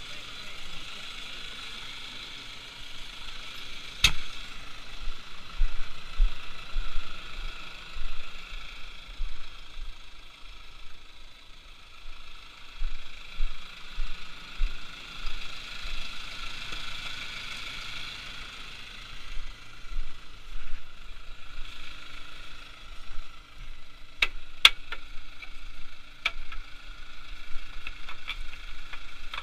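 A tractor engine idles steadily, with irregular low thumps on the microphone. About two-thirds of the way through, a run of sharp knocks begins as a hand tool strikes the steel share of an orange plough.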